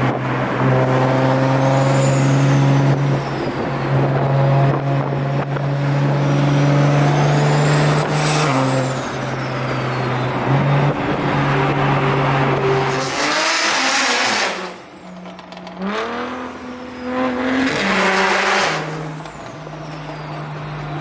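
Car engine running under way, its pitch steady at first, then dropping and climbing several times in the second half as the revs change.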